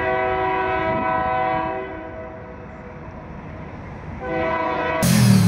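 Train horn sounding a long, steady chord, then a second blast about four seconds in that cuts off abruptly. Near the end a car engine takes over loudly.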